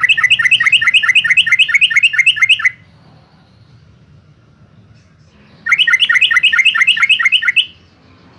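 Yellow-vented bulbul singing: two loud phrases of rapid repeated chirping notes, about six a second. Each phrase lasts two to three seconds, with a pause of about three seconds between them.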